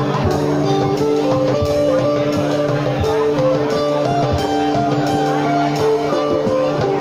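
A two-piece band playing live: guitar over held notes and a steady beat.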